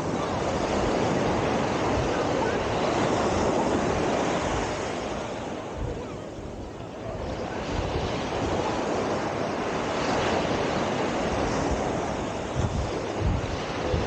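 Surf washing on a sandy beach, with wind rumbling on the microphone. The wash swells and eases, dipping about halfway through, and the wind comes in low gusts near the end.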